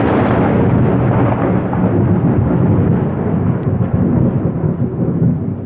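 Thunder rumbling, loud and continuous, with most of its weight low down, slowly easing off near the end.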